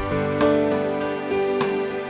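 Slow, soft background music with held notes, a new note or chord coming in about every second.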